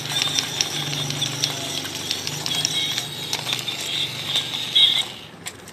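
Battery-powered walking toy crab running: a tinny electronic tune of high beeping notes over the whirr and clicking of its small geared motor. It stops abruptly about five seconds in.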